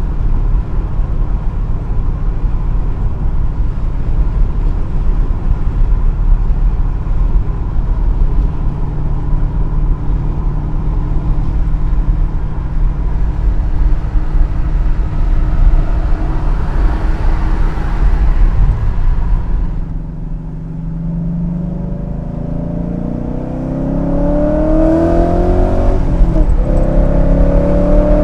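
BMW E39 M5's V8 with a muffler delete running steadily under way, then dipping briefly before accelerating hard, its pitch climbing, breaking at a gear change and climbing again. The engine has new timing chain guides and VANOS gears.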